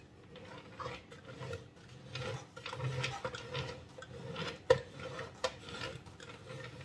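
Metal cake scraper scraping cream smooth around the side of a layer cake as the turntable is turned, a soft irregular rasping with small clicks and one sharper click about two-thirds of the way through.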